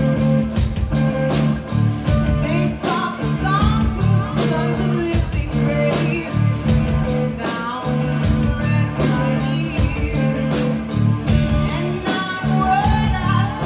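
Live band playing: electric guitars and a drum kit keeping a steady beat under a bass line, with a woman singing into a microphone.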